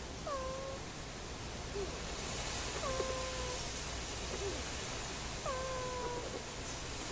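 Sleeping Boston Terrier puppy snoring with a squeaky, pitched whine on each breath: three long ones about two and a half seconds apart, each dipping quickly in pitch and then held for about half a second, with a short faint squeak between them.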